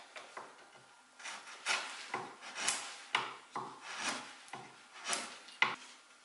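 Flat wood chisel pushed by hand along the edge of a wooden cabinet frame, paring off shavings: a series of short scraping cuts, roughly two a second, starting about a second in, the sharpest one near the end.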